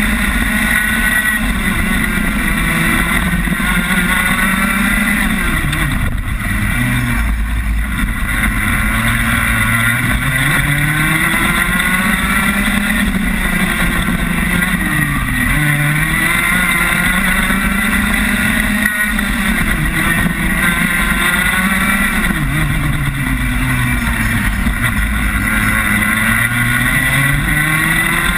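Rotax Max 125 cc two-stroke kart engine heard onboard at racing speed. Its pitch drops several times as the driver lifts and brakes for corners, then climbs again under acceleration.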